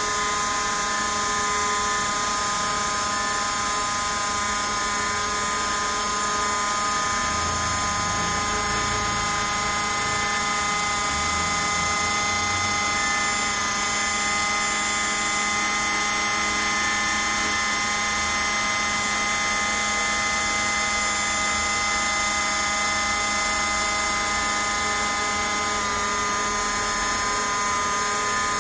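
Small CNC router carving a block of white foam, its spindle whining steadily with several fixed tones.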